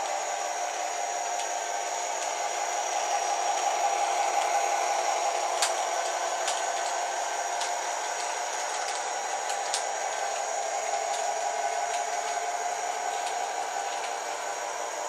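O gauge LionChief Plus Alco diesel locomotive running on three-rail track: a steady whir of its motor and wheels, with a few sharp clicks in the middle.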